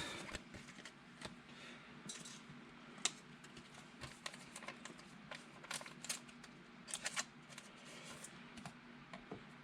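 Faint, scattered clicks and taps of trading cards being handled and set down on a table, about a dozen spread irregularly, with a low steady hum underneath.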